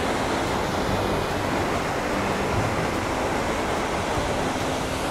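Elk Falls, a tall waterfall, pouring down a rock face into its canyon: a steady, unbroken rush of falling water, loud enough to drown out speech.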